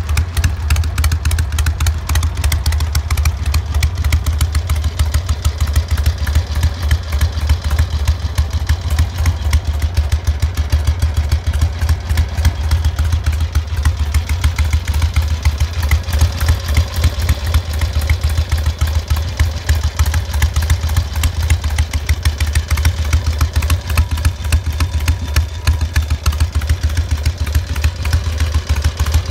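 Harley-Davidson XLH1000 Ironhead V-twin engine idling steadily, with a rapid, even exhaust pulse.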